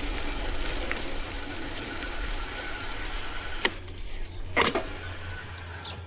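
Vintage 1984 Peugeot steel bike rolling over a rough path: steady tyre and wind noise, with two sharp knocks a little past the middle, after which it goes quieter.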